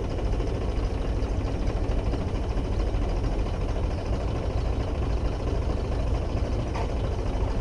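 Tractor diesel engine running steadily under load, driving a water pump through its PTO shaft.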